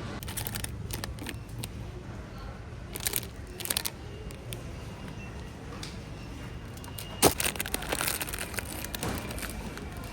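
Packaging and groceries being handled: scattered crinkling and clicking over a steady low hum, with a sharp knock about seven seconds in as something is set down.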